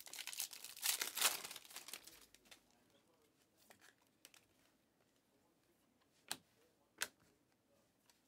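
A Prizm basketball card pack's wrapper is torn open and crinkled, a loud rustle for the first two seconds or so. Two short sharp clicks follow later as the cards are handled.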